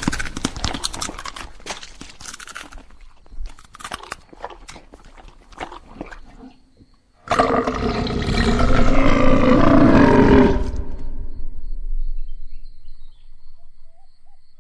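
Scattered crackles and small impacts fading away, then about seven seconds in a sudden loud, deep animal-like roar lasting about three seconds before it dies off.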